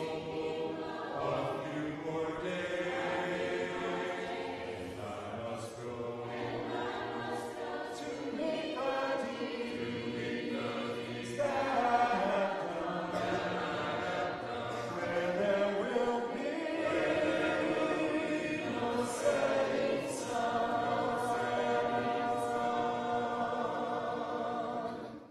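Church congregation singing a hymn a cappella, many voices in harmony with no instruments; the singing cuts off at the end.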